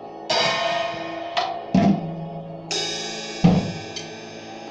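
Acoustic drum kit played with scattered, uneven strikes: about five hits on drums and cymbals, each left to ring out, the cymbal crashes washing on for a second or so.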